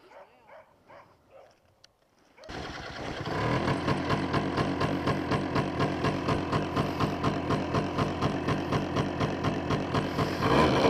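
Polaris Sportsman 90's small two-stroke ATV engine starting about two and a half seconds in and then idling, with an even pulsing beat about three or four times a second; it gets louder near the end.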